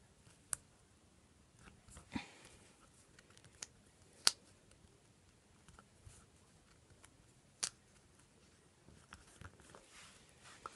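Hands handling the paper pages of a disc-bound planner: faint paper rustles and a few sharp clicks and taps, the loudest about four seconds in, with small ticks near the end.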